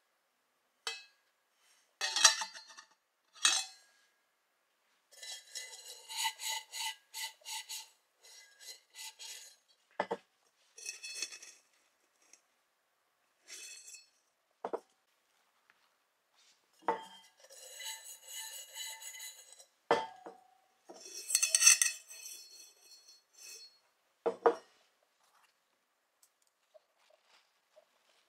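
Stainless steel YETI Rambler 12 oz bottle and its parts being handled: sharp metal clinks and knocks, between stretches of rhythmic rubbing strokes against the steel, several a second.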